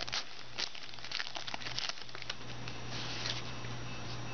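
Foil trading-card pack wrapper crinkling and cards being handled, with scattered small clicks and a denser crackle about three seconds in.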